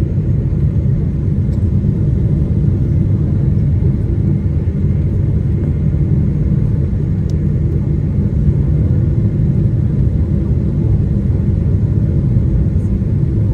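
Airplane noise during a landing: a loud, steady, deep rumble that holds even, with no rise or fall in pitch.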